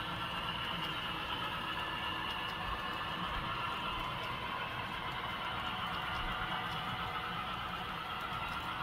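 Model railroad double-stack container well cars rolling past on the track: a steady whir of small metal wheels on rail with a low rumble and a few faint clicks.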